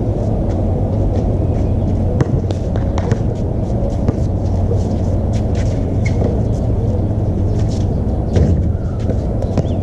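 Outdoor basketball game: scattered short knocks and scuffs of the ball and sneakers on the court over a steady low rumble, with faint voices.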